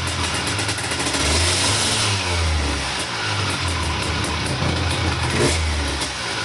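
Vespa two-stroke engine running through a Franz exhaust with its restrictor removed, at full unrestricted loudness, revved up and down a few times.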